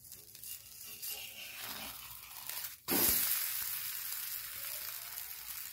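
Cabbage and rice-flour pitha frying in oil on a hot iron tawa. It hisses quietly at first; about three seconds in it is flipped with a metal spatula, lands with a soft thud, and the fresh side sizzles loudly, easing off slowly.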